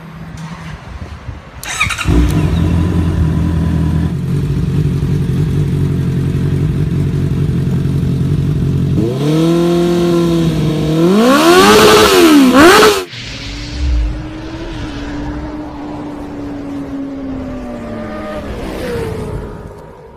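Honda CB650R motorcycle's inline-four engine, through an aftermarket slip-on exhaust, starting about two seconds in and settling into a steady idle. Later it is revved up and held, then blipped twice up and back down to its loudest, and cuts off suddenly. It then idles again, with one small blip near the end.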